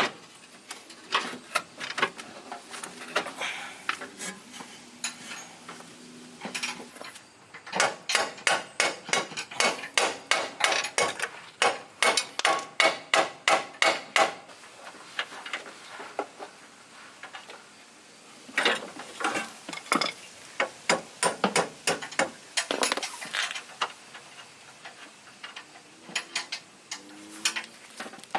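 Repeated hammer blows on metal at the car's front suspension, about three strikes a second, in runs of several seconds with short pauses between: knocking a stubborn old bolt loose during a lower control arm replacement.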